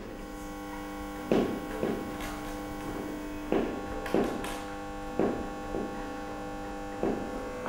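Electric bass guitar plucked in pairs of notes about every two seconds, over a steady electrical hum.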